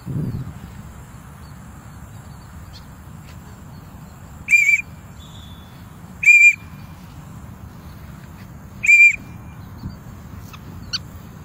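Three short, high whistle notes, each held steady for about a third of a second and spaced about two seconds apart, over a steady background hiss.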